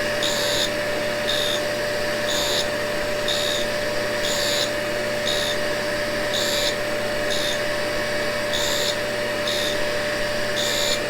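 Dust vacuum running steadily while a tool and cutter grinder grinds a carbide lathe tool bit. The high, hissing grind comes and goes about every three-quarters of a second as the tool is passed back and forth across the wheel.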